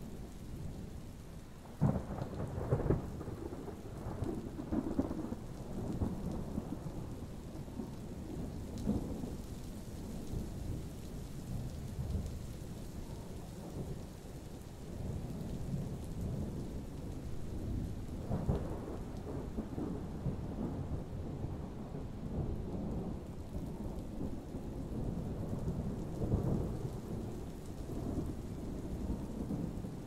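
Thunderstorm: rolling thunder rumbling over steady rain. There is a sharp crack about two seconds in, and more peals about halfway through and again near the end.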